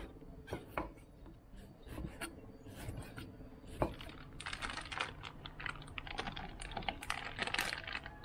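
Kitchen knife slicing garlic cloves on a wooden cutting board: irregular taps of the blade on the board, growing quicker and busier about halfway through.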